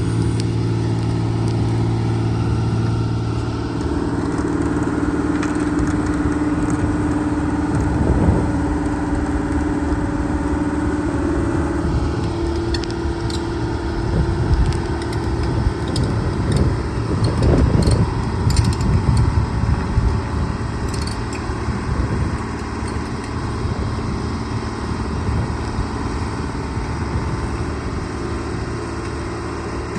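Case 125B tracked excavator travelling slowly, its diesel engine running steadily. Through the middle stretch there are sharp metallic clanks from the tracks and a heavier rumble.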